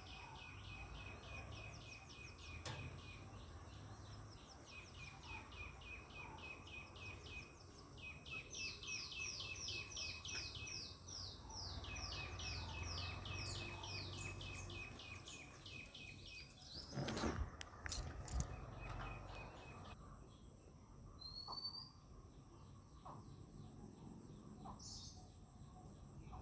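A bird calling in long runs of quick, high chirps, about five a second, in phrases that stop about two-thirds of the way through. A few sharp knocks follow, the loudest sounds here, and then a single short rising chirp.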